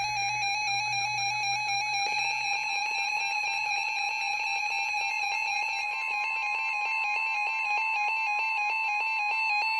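Weather radio alert alarm: a loud, steady electronic beeping tone with a fast warble. About six seconds in, a second steady tone joins, the 1050 Hz warning alert tone that NOAA Weather Radio sends before a new warning.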